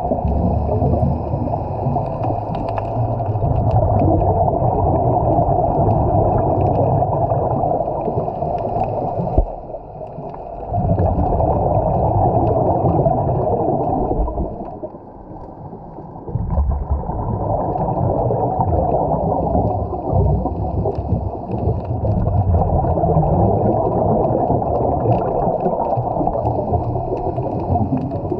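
Muffled underwater rumble and gurgling picked up by a camera in its waterproof housing, dropping away briefly about a third of the way in and again for about two seconds near the middle.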